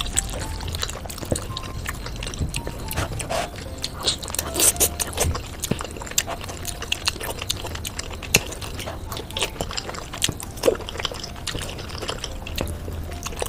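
Slurping and chewing of saucy noodles, with many short wet smacks and clicks.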